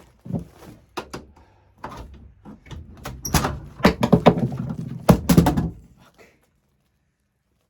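Knocking, rattling and scraping as a stuck HVAC filter access cover is forced open and the filter is worked out of its slot, the clatter getting denser and louder partway through, then stopping.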